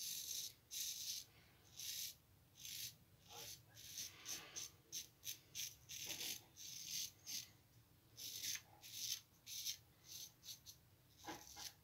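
Straight razor, a kamisori with a symmetric bevel, scraping through lathered stubble in a quick series of short, crisp strokes with brief gaps between them.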